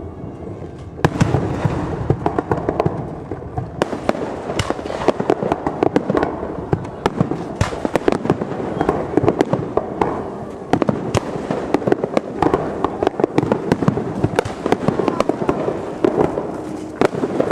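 Fireworks display: shells bursting in rapid, overlapping sharp bangs and crackling, almost continuous from about a second in.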